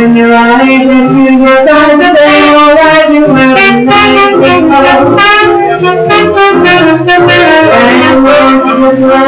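Swing jazz music, with several held notes sounding together and shifting every second or so.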